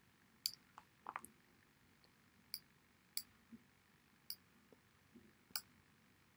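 Faint computer mouse clicks, about five sharp ones at irregular intervals, over near-silent room tone.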